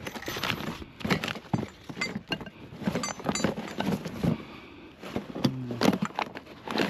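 Junk being handled and rummaged through: an irregular string of knocks, clatters and light metallic clinks.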